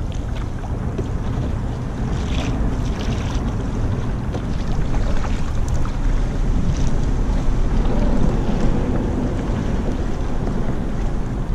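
Wind buffeting the camera microphone, with water lapping against a kayak hull: a steady low rumble and wash.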